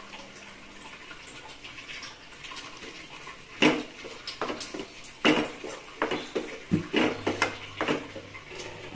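Spatula stirring a wet mix of boiled green peas and masala in a nonstick pan, scraping and knocking against the pan again and again from about three and a half seconds in. Before that comes a soft, quiet pour of the watery peas into the pan.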